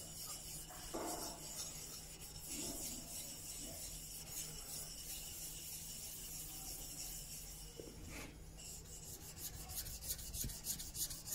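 Steel chisel back being rubbed flat on a wet 300-grit sharpening stone: a gritty scraping rub that settles into quick, regular back-and-forth strokes from about eight seconds in.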